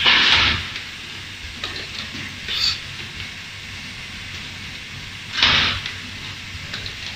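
Short hisses of compressed air from the pneumatic cylinders on an automated laser welding fixture: one at the start, a smaller one about two and a half seconds in, and another about five and a half seconds in, over a steady low machine hum.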